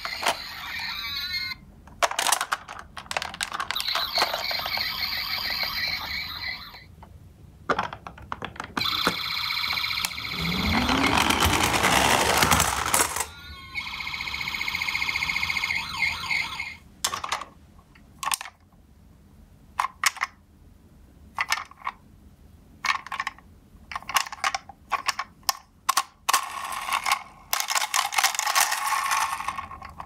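Toy ambulances' built-in electronic sirens sounding in several bursts. Between the bursts, a stretch of short clicks and knocks from the plastic toys being handled.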